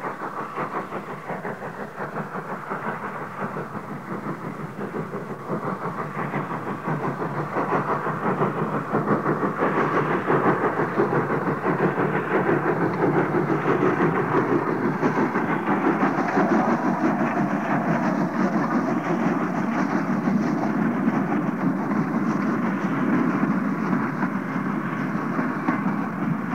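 Small industrial steam tank locomotive hauling a train of mineral wagons, its rapid exhaust beats mixed with wagons rattling along the track. It grows louder over the first ten seconds or so as it approaches, holds, and eases near the end.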